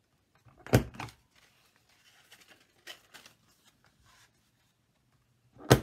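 Handheld corner punch snapping shut twice, once about a second in and again near the end, cutting rounded corners into cardstock flaps. Faint paper rustling and light ticks come between the two snaps.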